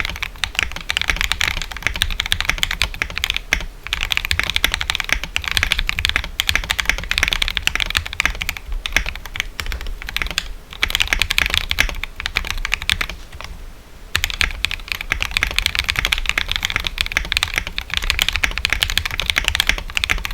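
Fast typing on a custom 60% mechanical keyboard with lubed Durock POM linear switches on a brass plate and MT3 keycaps, a dense run of clacky keystrokes with brief pauses, the lowest of them about 13 to 14 seconds in.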